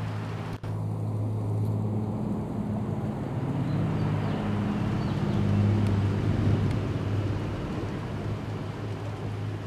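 G-scale model freight train running on outdoor garden track: a steady low motor and gear hum with wheels rumbling on the rails. It grows a little louder in the middle as the train passes, and drops out briefly just after the start.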